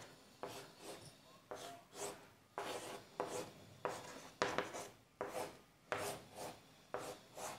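Chalk scratching on a blackboard as lines and rings are drawn: about a dozen short scratchy strokes, one or two a second, with brief pauses between them.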